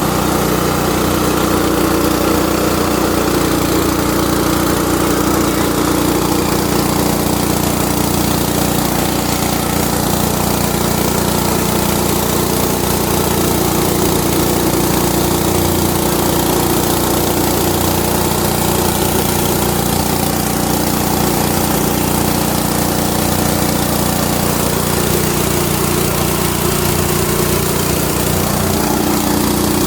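Mahkota KD-400S mini rice mill running steadily, driven by its Yamakita 196 cc single-cylinder four-stroke petrol engine.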